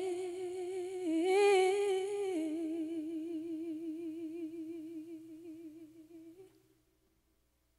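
Unaccompanied solo singing voice holding the word "way" as one long note with vibrato. The note steps up in pitch about a second in, drops back down about two and a half seconds in, and fades away about six and a half seconds in.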